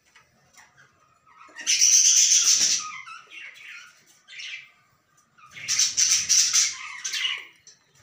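Budgerigars giving harsh, raspy squawking calls: two loud bursts, the first about a second and a half in and the second past the middle, each lasting a second or more, with a shorter call between them.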